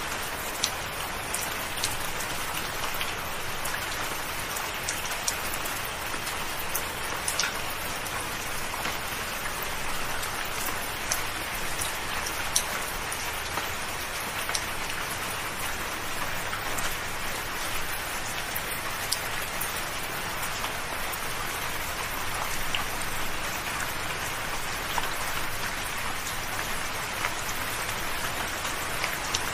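Gentle rain falling steadily: an even hiss with scattered single drops ticking sharply through it.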